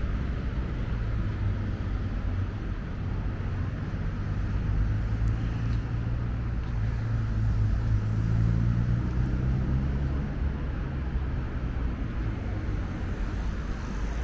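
Steady road traffic from cars on the street beside the walkway, with one vehicle's engine growing louder and passing about halfway through.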